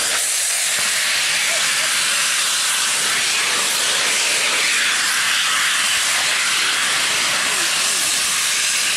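Several fire extinguishers discharging at once in a loud, steady hiss, putting out a fire.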